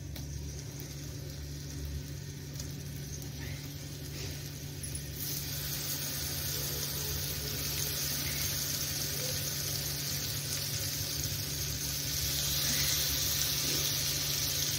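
Spice-coated round brinjal slices sizzling as they fry in mustard oil on a tava. The hiss is steady and grows louder about five seconds in.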